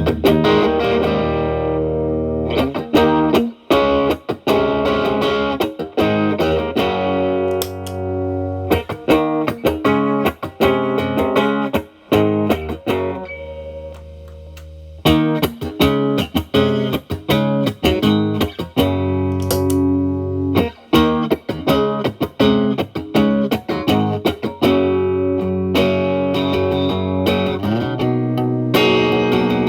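Fender Telecaster played through an E.W.S. Brute Drive (BD-1) distortion pedal set to gain 9 into a Marshall Valvestate amp's clean channel: overdriven picked lines and chords, with a brief quieter held moment about halfway through.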